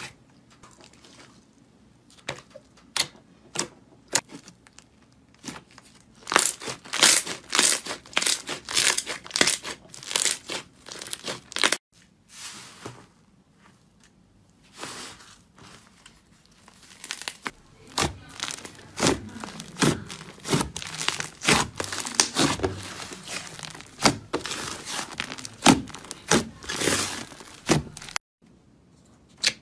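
Slime being squeezed, pressed and poked by hand, giving crisp runs of pops, crackles and sticky clicks. It goes quiet briefly about twelve seconds in, then the crackling picks up again, densest in the second half.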